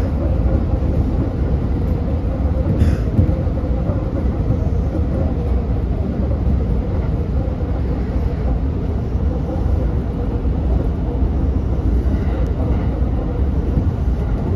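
Cab of a JR West 227 series electric train running at speed: the steady low rumble of wheels on rail, heard from inside the driver's cab, with a faint steady hum over it.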